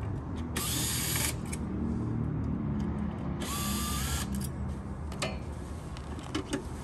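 Cordless drill run twice in short spurts of under a second each, backing out the cover screws of a chassis dyno's electrical box. Light clicks follow as the screws and cover are handled.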